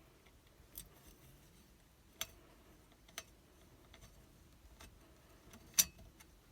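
A few sparse, sharp little metal clicks and taps from a screwdriver and the parts of a mortise lock being handled as its plate is unscrewed, the loudest click near the end.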